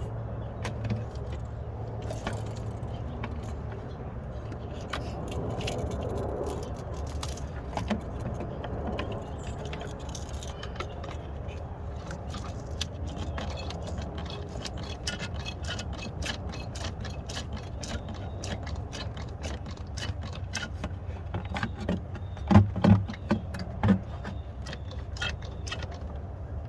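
Hand pump being worked to draw power steering fluid out of the reservoir: a steady run of small clicks and rattles over a low hum, with three loud knocks close together near the end.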